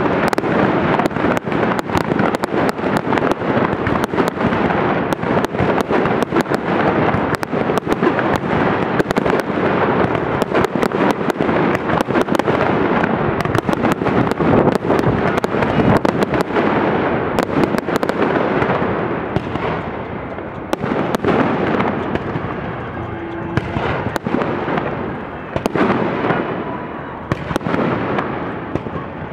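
A large aerial fireworks display: a dense, continuous barrage of bursts and crackle, one sharp report after another with no gaps, easing off somewhat in the last third.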